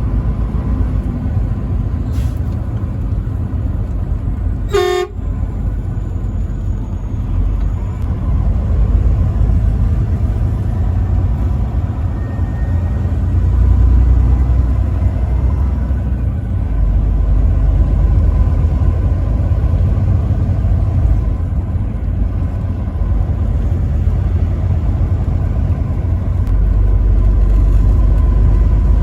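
Steady low rumble of a vehicle driving on a highway, with one short blast of a truck horn just under five seconds in.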